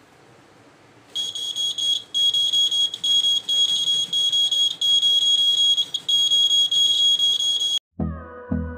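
Piezo buzzer of a homemade seismograph (earthquake detector) sounding a steady, high-pitched alarm tone with brief dropouts as the base is shaken: the detector is triggered. It starts about a second in and cuts off near the end, where background music with a beat takes over.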